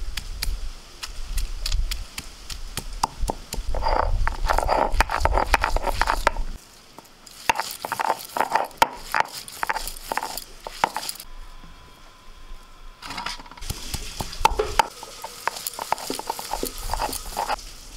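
Stone on stone: the hand-held grinding stone of a shil-nora is scraped back and forth over the pitted stone slab, crushing prawn head shells with rough rasping and many sharp clicks and knocks. It comes in several bouts, with a short lull a little past the middle.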